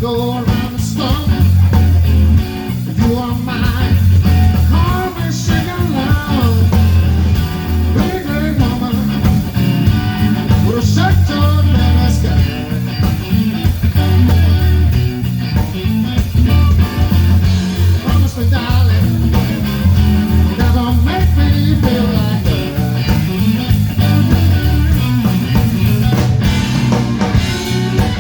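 Blues band playing a slow blues, electric guitar lines over a steady bass pulse.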